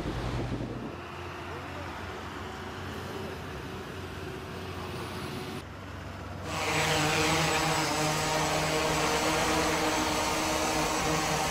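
Multirotor cargo drones flying as a group, their propellers giving a steady, many-toned buzzing hum that becomes louder about six and a half seconds in. Before that a quieter steady hum.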